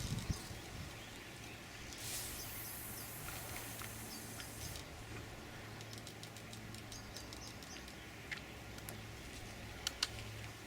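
Faint outdoor ambience: a small bird chirping in short repeated phrases, a hiss lasting about three seconds from around two seconds in, and scattered light clicks and ticks.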